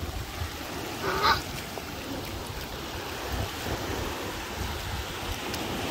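Shallow surf washing in over a sandy beach, with wind rumbling on the microphone. A short, louder sound stands out about a second in.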